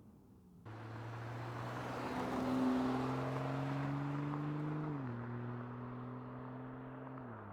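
BMW M240i's B58 turbocharged inline-six with a valved aftermarket sport exhaust, accelerating past. The engine note climbs slowly and is loudest a couple of seconds in, then drops in pitch twice as it shifts up, fading as the car moves away.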